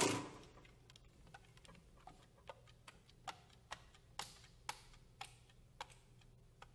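Clarinet key clicks: about a dozen soft, slightly pitched clicks, roughly two a second, as the keys are fingered without blowing. The ringing of a loud clarinet and piano passage dies away at the start.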